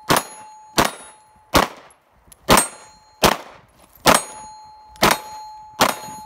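Pistol fired eight times at a steady pace, about one shot every 0.8 seconds. Most shots are followed by a clear ringing tone that hangs until the next shot: hits on steel targets.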